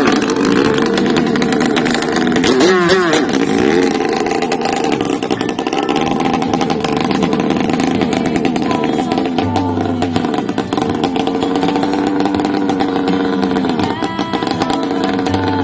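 Engines running steadily, their pitch rising and falling, with a quick rev about three seconds in.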